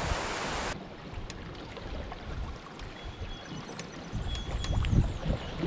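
A steady hiss of wind gives way, just under a second in, to quieter canoe paddling on calm water: paddle strokes dipping and dripping, with sharp little clicks and a few short high chirps. The strokes grow louder near the end.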